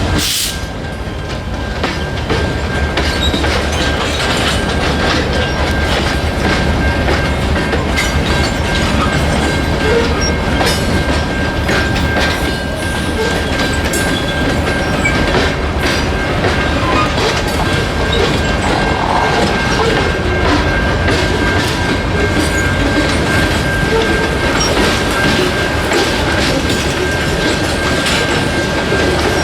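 Freight train cars rolling past, their wheels clicking over rail joints, with a thin steady whine alongside. A short burst of hiss comes at the very start.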